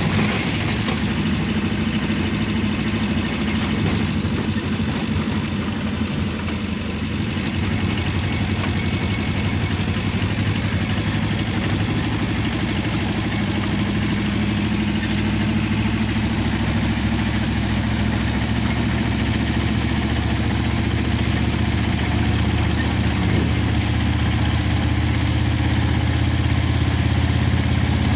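Engine and road noise heard from inside a moving vehicle's cabin: a steady low engine drone under a constant rush of tyre and wind noise, a little louder near the end.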